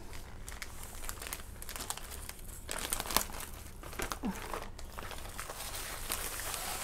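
Clear plastic polybag crinkling and crackling irregularly as hands open it and slide a folded football jersey out.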